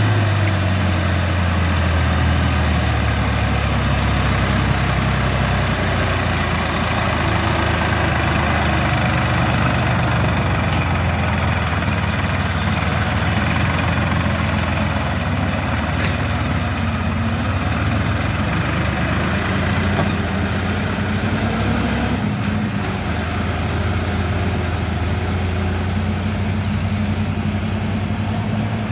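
Heavy diesel engine running steadily, its low hum shifting slightly in pitch now and then as the load or throttle changes.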